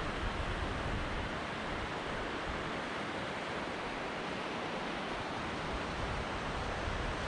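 Steady rush of a snowmelt-swollen mountain creek, with an uneven low rumble underneath.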